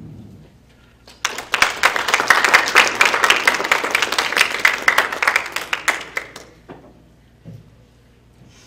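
Audience applauding. It starts suddenly about a second in, holds for about five seconds, then dies away with a few last claps.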